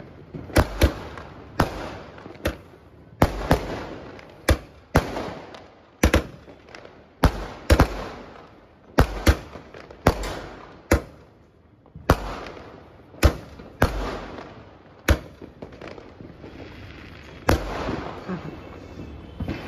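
A Cock Brand 15-star repeater skyshot firing: a rapid run of sharp bangs as its shells launch and burst overhead, about one or two a second. The bangs space out near the end.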